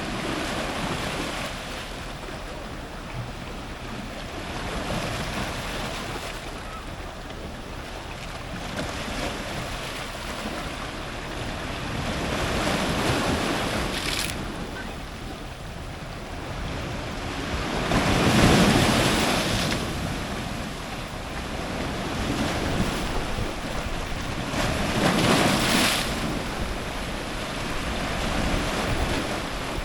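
Ocean surf breaking on rocks close by: a constant rush of water that swells and falls as each wave comes in, with the biggest breaks about 18 and 25 seconds in.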